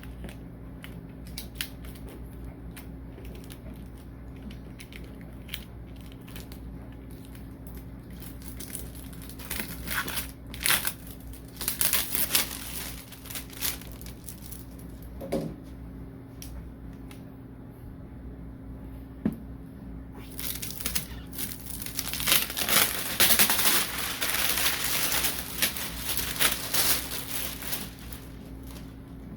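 Plastic packaging crinkling and rustling as it is handled and pulled off. There are light scattered clicks at first, bursts of crinkling about ten seconds in, and a longer, denser stretch in the last third.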